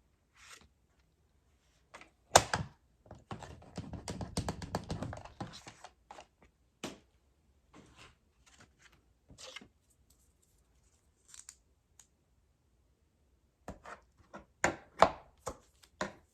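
Cardstock being scored again along a fold line: sharp knocks and taps on the work surface, with a couple of seconds of rapid scratchy scraping a few seconds in as the scoring tool is drawn along the paper, and another group of knocks near the end.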